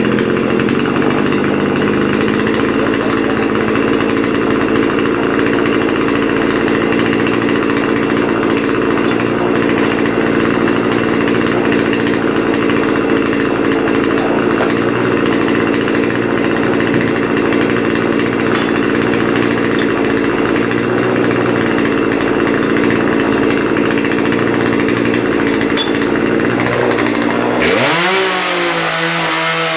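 Chainsaw running steadily, cutting firewood to length. Near the end its pitch rises sharply as it revs higher.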